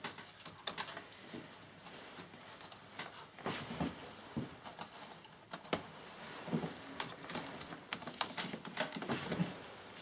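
Scattered light plastic clicks and taps as a replacement laptop keyboard is pressed down by hand, its keys clicking under the fingers while its front tabs are pushed into place in the frame.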